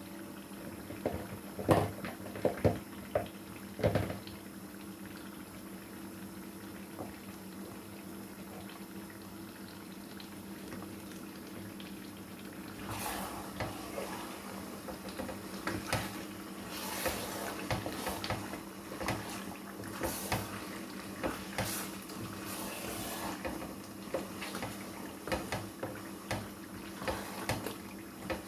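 Wooden spoon stirring a thick tomato stew of turkey and mackerel in a pot: wet squelching and scraping, with a few sharp knocks about two to four seconds in and busier stirring from about halfway through.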